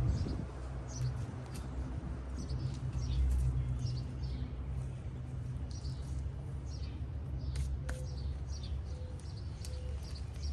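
Small birds chirping again and again in short high calls, over a steady low rumble.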